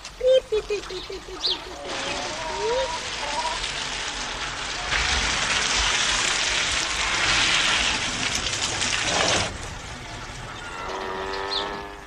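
Ducks quacking briefly at the start, then a long hiss that swells, holds for several seconds and cuts off suddenly, with a steady horn-like tone near the end.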